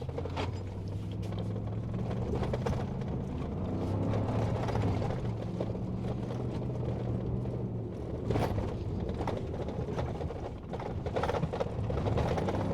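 A vehicle's engine running steadily, heard from inside the cab, with repeated knocks and rattles from the body and suspension as it drives over a rough dirt two-track. The jolts bunch up about eight seconds in and again near the end.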